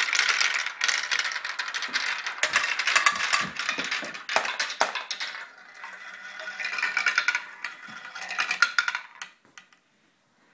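A batch of marbles rolling and clattering down a marble run, a dense rattle of many clicks and knocks that dies away about nine seconds in, leaving a few scattered clicks.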